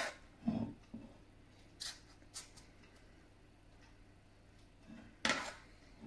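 A metal spoon scooping thick muffin batter from a stainless steel mixing bowl and dropping it into paper liners in a muffin tin. A few short scrapes and clicks with quiet gaps between them, and a longer scrape against the bowl near the end.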